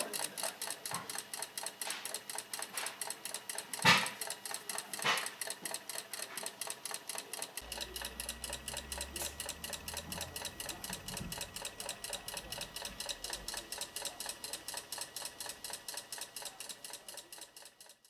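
Small motorised mechanism of an HO-scale model sawmill running, with a steady rhythmic clicking of about four or five clicks a second. Two sharper knocks come about four and five seconds in, and the sound fades out near the end.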